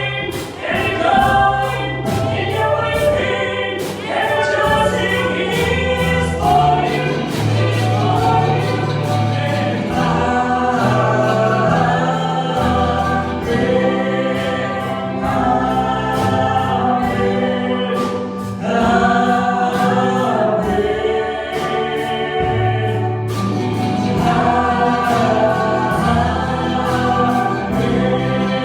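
Choir singing a gospel song over instrumental accompaniment, with sustained bass notes and a steady beat.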